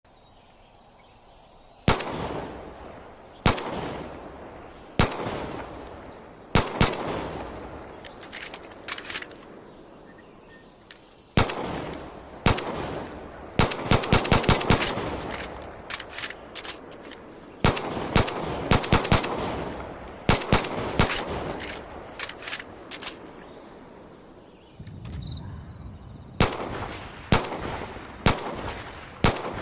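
Ed Brown 1911 pistol firing shot after shot, each sharp report followed by a fading echo. Some shots come singly a second or two apart, others in quick strings, with the fastest run about halfway through.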